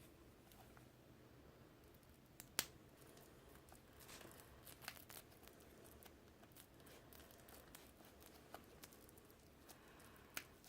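Faint crinkling and tearing of the plastic shrink-wrap seal on a vinyl LP sleeve being opened, with a sharp click about two and a half seconds in and light ticks scattered through.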